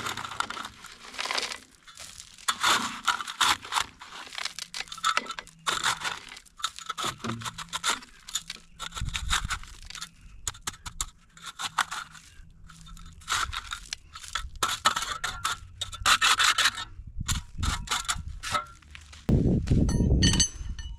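Shovel scraping and crunching into gravelly soil, stroke after stroke at an uneven pace, digging out a washed-out spot. Near the end a louder low rumble comes in.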